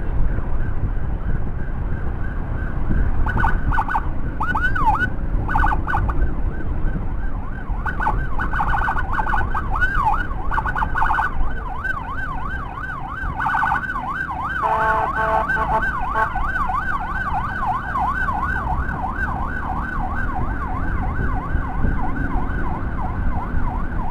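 An emergency siren yelping in quick up-and-down sweeps. It comes in short bursts a few seconds in, then runs continuously from about a third of the way through, briefly changing to a stepped tone around the middle. Low road and wind rumble from the moving motorcycle runs underneath.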